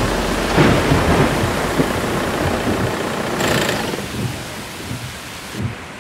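Heavy rain falling, with a low rumble of thunder about half a second to a second in; the downpour eases off over the last two seconds.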